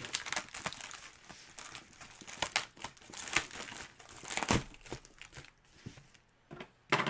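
A packaging wrapper crinkling and tearing as it is opened by hand, in dense irregular crackles that thin out about two thirds of the way through, with one last loud rustle near the end.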